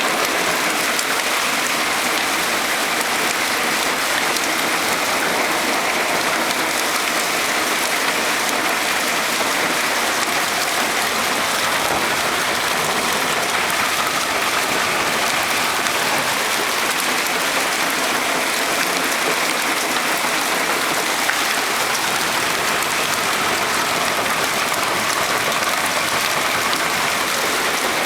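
Intense hailstorm: hail falling heavily with rain, a dense, steady patter of countless impacts.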